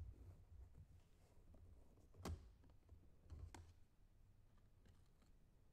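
Near silence with a few faint clicks and taps, the sharpest about two seconds in: a card in a hard plastic holder being handled and slid out of a card briefcase.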